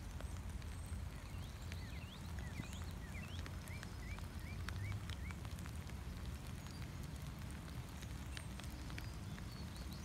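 Light rain, with scattered drops ticking close by over a steady low rumble. A bird sings a quick run of about ten short chirps in the first half.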